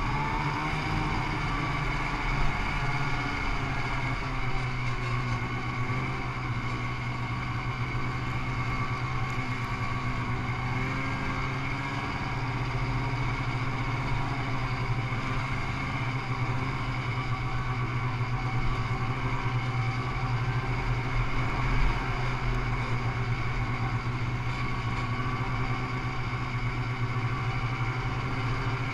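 Snowmobile engine running steadily while riding a snow trail, a continuous engine hum that stays at much the same pitch and level throughout, with only small bumps in loudness.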